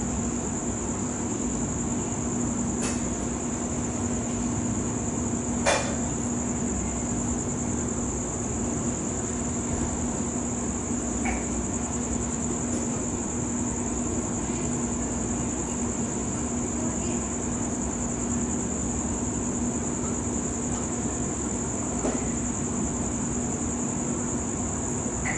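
Crickets trilling in one continuous high-pitched band over a steady low hum and even background noise, with a sharp click about six seconds in.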